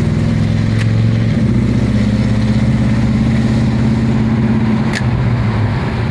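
The engine of a 1963 Plymouth Belvedere station wagon running at low speed while driving, heard from inside the car, a steady drone that shifts pitch slightly about a second and a half in and again near the end. A couple of brief clicks come through, one early and one near the end.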